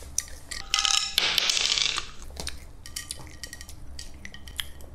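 Faint clicks and taps of small jelly-cube candies being picked up and stacked on a plate by hand. About a second in there is a brief louder burst of noise.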